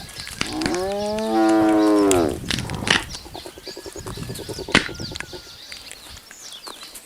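A spotted hyena gives one long, drawn-out lowing call that rises and then falls in pitch, lasting nearly two seconds, followed by sharp cracks and crunches as buffalo bones are chewed at the carcass.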